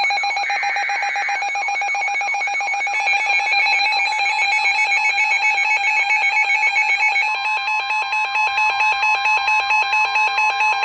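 Emergency Alert System alert tones: a steady electronic alarm tone with a fast, even pulsing over it and a short higher burst about half a second in. About seven seconds in the pattern changes and a second steady tone joins.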